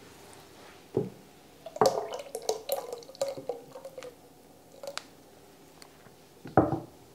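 Buttermilk glugging and dripping out of a glass jar into a pot of melted butter, with a knock about a second in and another near the end as the jar is set down on the table.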